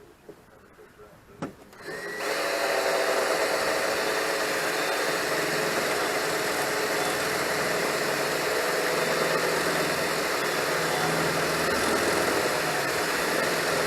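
Electric drill drilling out a spot weld in the steel body panel of a Citroën 2CV. After a couple of quiet seconds with a few light clicks, the drill starts about two seconds in and runs steadily at an even pitch.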